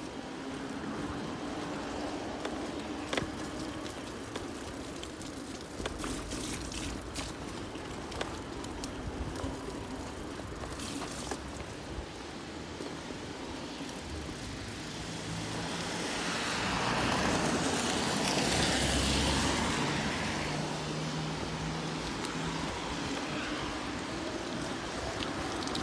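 Electric bicycle rolling over wet paving slabs and tarmac: tyre and road noise under a steady low hum. About two-thirds of the way through, traffic noise swells and fades as a vehicle passes on the wet road.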